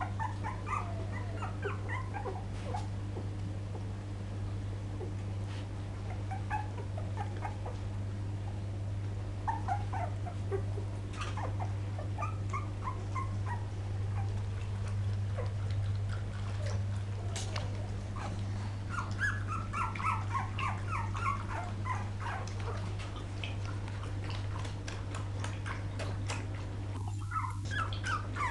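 Poodle puppies whimpering and squeaking in short, high-pitched yips that come in clusters with pauses between, busiest a little past the middle. A steady low hum runs underneath.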